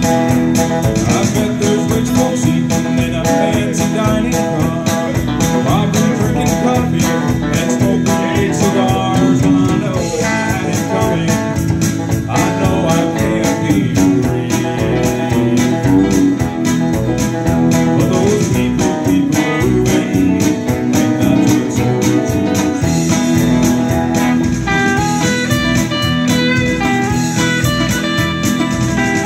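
Live band playing: electric guitar over a strummed acoustic guitar and electric bass, continuous and loud.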